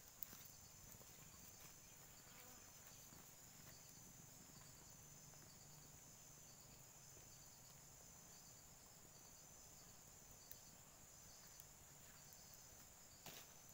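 Near silence outdoors, with a faint, steady, high-pitched insect trill that pulses, and a few faint clicks.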